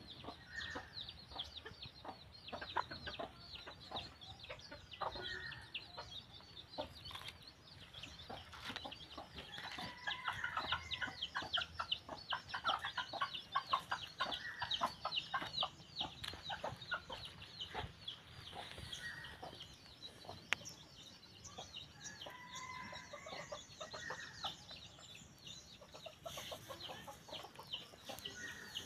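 Red junglefowl clucking in short calls every few seconds, over a dense, rapid run of high chirps.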